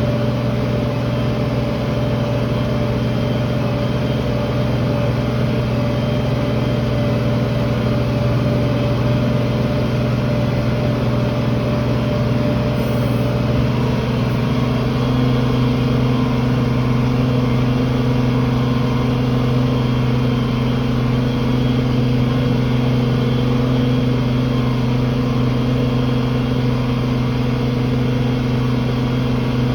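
Farm tractor engine running steadily under load while pulling a field cultivator, its tone shifting slightly about halfway through.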